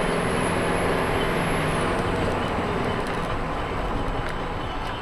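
Steady road and engine noise of a car driving on a highway, heard from inside the cabin through a dash cam's microphone: a low rumble with tyre hiss. A faint high whistle slides down and stops about two seconds in.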